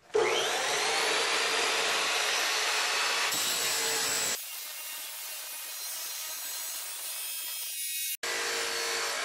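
Abrasive cut-off saw spinning up with a rising whine, then grinding through steel exhaust pipe with a steady hiss. The sound drops abruptly about four seconds in and breaks off for an instant near the end.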